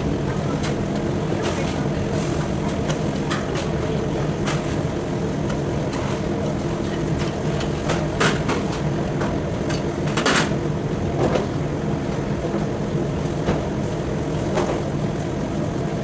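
A steady low mechanical hum, like a running engine, with sharp clicks or knocks at irregular intervals.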